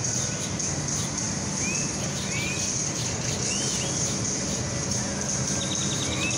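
Open-air ambience: several short arched bird chirps and a quick ticking trill near the end, over a steady high insect drone and a low steady hum.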